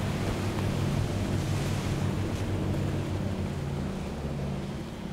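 Waterfront ambience: a steady wash of wind and water with a low sustained drone underneath, easing off slightly near the end.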